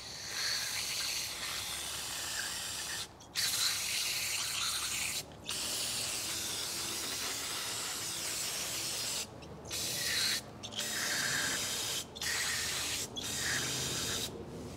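Aerosol can of brake parts cleaner hissing in a series of sprays with short breaks, the longest about four seconds, flushing drilling chips out of freshly drilled bolt holes in an aluminum engine front case before they are tapped.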